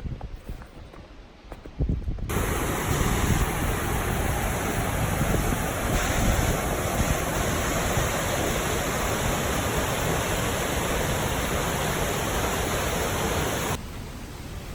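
Waterfall rushing: a loud, steady wash of water noise that starts abruptly about two seconds in and cuts off near the end. Before it, only a faint low rumble of wind.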